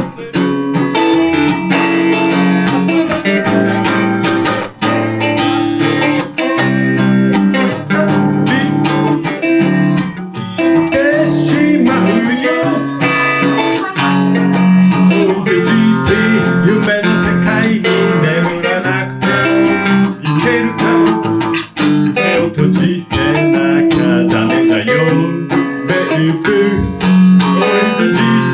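Electric guitar playing an instrumental break, a Van Zandt Telecaster through a Roland JC-120 amplifier, with a busy run of picked notes and chords.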